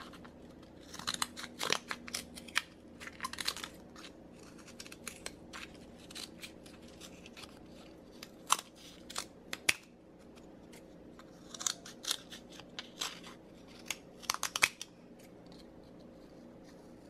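Scissors snipping through thin cured carbon fiber sheet, trimming the excess flashing from a molded part: irregular clusters of short, sharp crunching cuts with quiet gaps between, over a faint steady hum.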